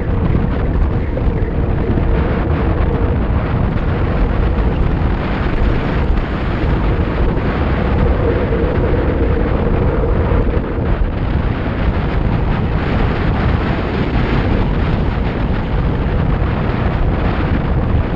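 Wind rushing over the camera microphone on a road bike descending at speed: a loud, steady buffeting rush with a faint steady hum underneath.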